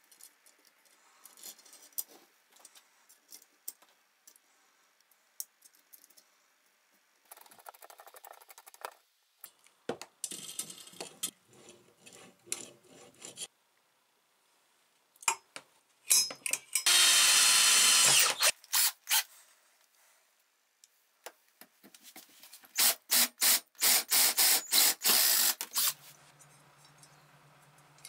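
Small metal parts clicking and tapping as they are handled, then loud bursts of a cordless power drill running: one longer run about halfway through and a rapid string of short trigger bursts near the end.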